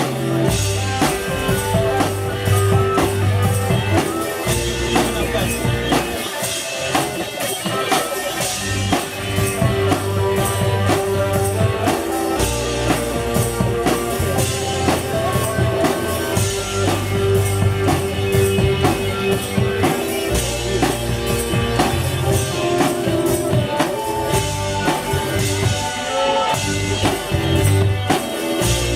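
One-man band playing live: a drum kit keeps a steady beat under guitar and bass notes.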